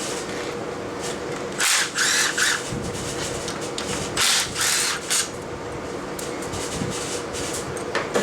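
Small 1/4-inch cordless power tool with a 10 mm socket running in short bursts, two clusters about a second and a half and four seconds in, spinning bolts out of the intake plenum.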